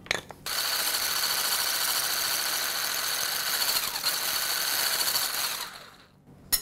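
Electric stick blender with a whisk attachment whirring steadily as it beats raw eggs in a glass bowl; it switches on about half a second in and winds down near the end.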